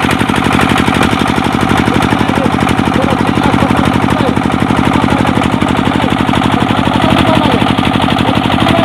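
Boat engine running steadily, close by, with a fast, even knocking pulse.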